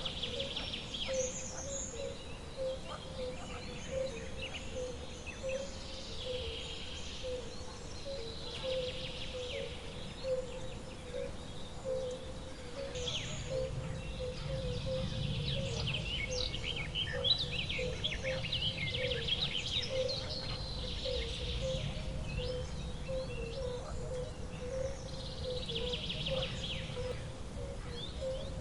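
Outdoor bird chorus: birds chirping and trilling in short overlapping bouts, over a steady low pulsing call that repeats about twice a second. A low rumbling background swells through the middle.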